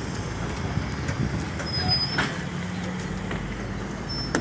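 Passenger train running: the steady rumble of the moving carriage, with a couple of sharp knocks, one about halfway and one at the end.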